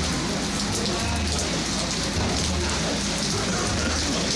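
Steady rain falling on a street and car, an even hiss of drops, with a low rumble underneath that swells and fades every second or so.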